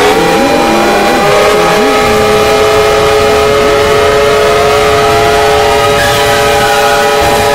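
Fan-made emergency alert alarm: several siren tones wind up in pitch and then hold steady together in a layered, clashing chord, with more tones sliding up into it a few seconds in. It is very loud and overdriven throughout.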